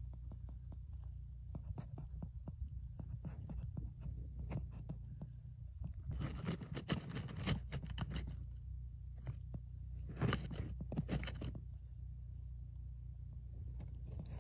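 Marmot scraping and shuffling earth and dry grass in its burrow, the sound of it plugging the entrance before hibernation. There are two bursts of dense scraping and crunching, about six and ten seconds in, and scattered small clicks over a steady low hum.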